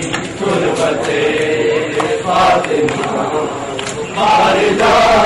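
A crowd of men chanting a Shia mourning noha in unison, with sharp slaps of hands striking bare chests (matam). The chant dips in the middle and swells again near the end.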